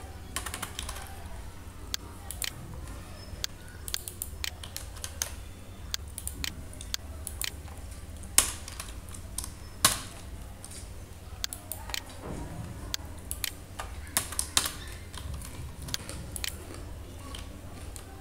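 Typing on a computer keyboard: irregular key clicks, with a couple of sharper, louder strikes about eight and ten seconds in, over a steady low hum.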